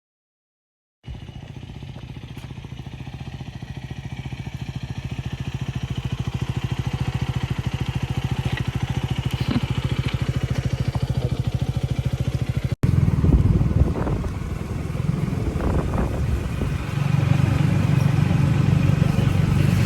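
Husqvarna Svartpilen 250 single-cylinder motorcycle engine running, starting about a second in and slowly growing louder. After an abrupt cut it is louder and uneven, picking up revs towards the end.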